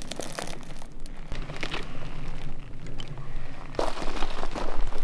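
Footsteps crunching and rustling through dry twigs and forest undergrowth, getting louder near the end.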